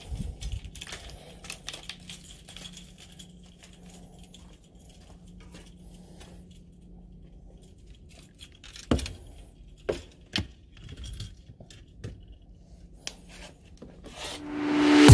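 Fishing rods being handled: small clicks and light rattles, with a few sharp knocks in the middle. Music fades in near the end.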